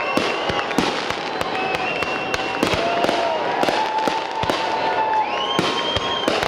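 Fireworks display: a dense run of bangs and crackling from bursting aerial shells, with several overlapping steady whistles, each about a second long, that rise at the start and fall away at the end.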